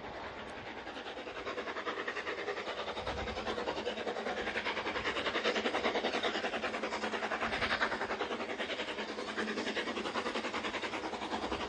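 Narrow-gauge steam locomotive Lyd, a 2-6-2 tank engine, working a passenger train with chuffing in a quick, even rhythm. It grows louder from about two seconds in as the train approaches.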